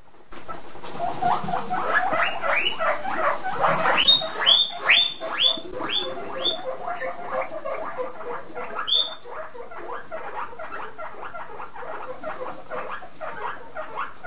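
Guinea pigs wheeking: a run of loud, high rising squeals, strongest about four to six and a half seconds in and once more near nine seconds, over a steady stream of short rapid squeaks. This is the guinea pigs calling for food.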